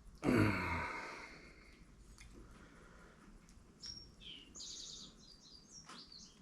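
Birds chirping in quick, high, repeated notes from about four seconds in. Just after the start a brief, loud sound slides down in pitch and fades within about a second.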